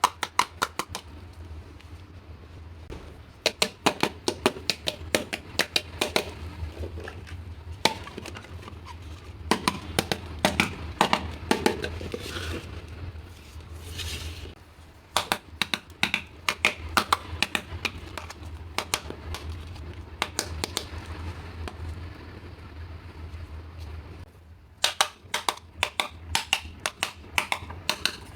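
Small toy kitchen pieces being handled and set down: runs of quick, light clicks and taps, with a low hum underneath.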